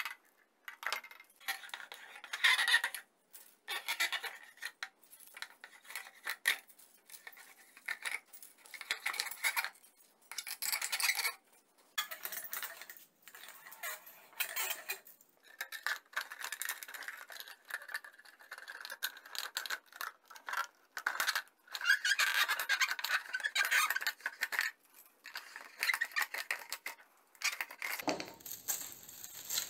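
Plastic bottle being pulled through a blade on a homemade wooden-block cutter and sliced into a long continuous strip: scratchy plastic scraping in uneven spurts with short pauses between pulls.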